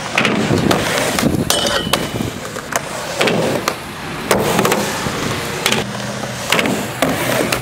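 Skateboard wheels rolling over concrete, with repeated sharp clacks of boards hitting the ground.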